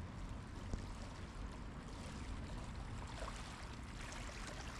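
Kayak paddle blades dipping and splashing softly in canal water as a kayak paddles toward the microphone, over steady low background noise.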